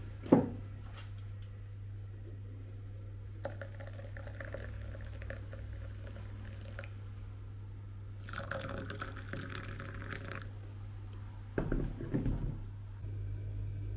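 Hot water poured from a stainless-steel electric tea-maker kettle into two glass tea mugs, one after the other. The second pour is louder. A sharp clink comes just after the start, and a few knocks near the end as the kettle is set back on its base, all over a low steady hum.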